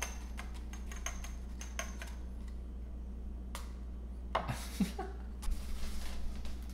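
Small glass jars and a paper funnel clicking and tapping lightly as arrowroot starch is poured into the jars, with clicks clustered in the first two seconds and a few single ticks later, over a low steady hum.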